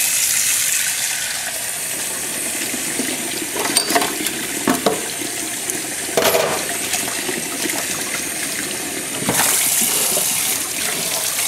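Kitchen tap running into a stainless-steel sink as a pet food bowl is rinsed under the stream, with a few brief knocks of handling. About nine seconds in the water splashes louder as the bowl is held right under the stream.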